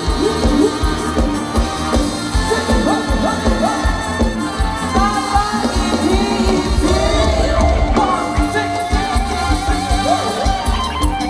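Live Thai ramwong dance-band music: a steady drum beat under a sung, wavering melody.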